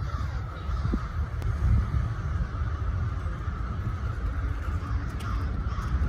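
A large flock of crows cawing all at once in a dense, unbroken chorus, over a steady low rumble.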